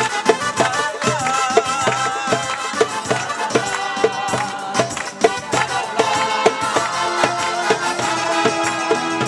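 Live Roma folk music: a steady drum beat under a wavering, ornamented melody line.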